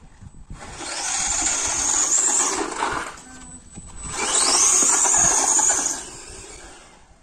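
RC monster truck's 2300KV brushless electric motor whining up in pitch as it accelerates hard, twice, each run lasting about two seconds, with its tyres rushing over paving tiles.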